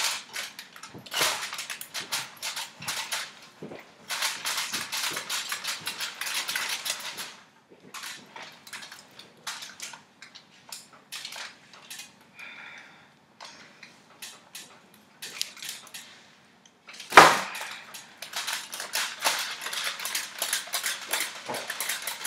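A kitchen knife cutting slits through the scaly skin of a large whole fish lying on crinkling aluminium foil: dense crackling in bursts, with one sharp knock about seventeen seconds in.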